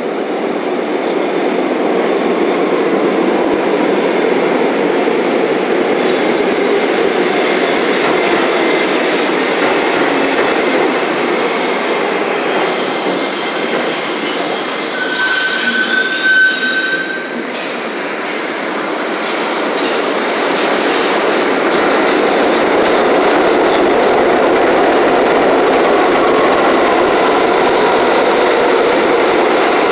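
New York City Subway R62A cars running through an underground station: a steady loud rumble of steel wheels on rail. A brief high wheel squeal comes about halfway through, then the noise builds again as a second train passes close by on the near track, with another squeal near the end.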